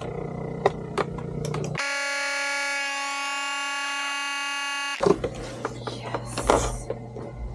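A FoodSaver vacuum sealer's pump humming steadily while it draws air out of a bag of salmon fillets. About two seconds in, a loud, shrill, alarm-like buzz of several steady pitches starts abruptly, holds for about three seconds and cuts off suddenly, followed by crinkling and handling of the plastic bag.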